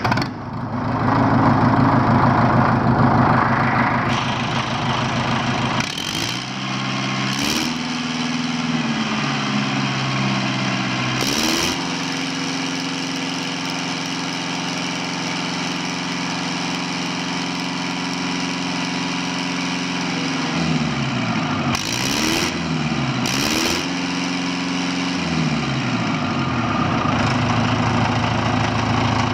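Cummins B3.3 four-cylinder diesel engine running on a stand and being revved up and down. Its speed climbs about a quarter of the way in, holds high for several seconds, drops back, then rises and falls again near the end, with a few short rushes of noise in between.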